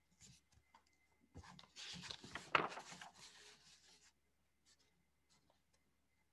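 Brief rustling and scraping close to a microphone, like paper or something being handled, lasting about two and a half seconds from just under a second and a half in, with a few faint clicks before and after.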